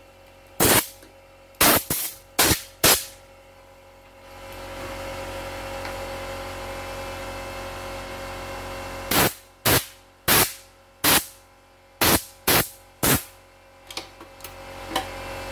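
Sharp clicks and knocks of a plastic embroidery-machine cover and a screwdriver being handled during disassembly. They come in a cluster at the start and again through the second half, with a steady hiss for about five seconds in between.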